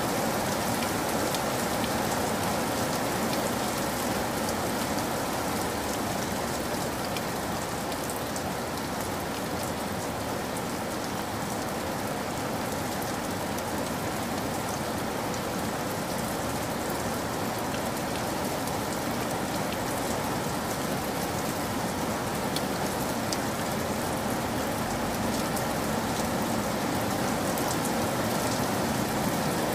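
Steady rain, an even hiss with faint scattered ticks, unchanging throughout.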